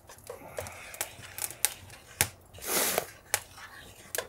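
Kitchen utensils clicking and knocking against cookware about seven times, with one short hiss a little under three seconds in.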